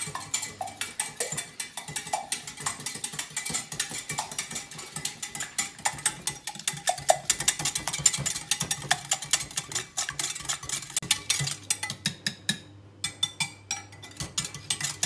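Wire whisk beating eggs fast in a glass measuring jug: rapid, rhythmic ticking of the wires against the glass, with a brief break near the end.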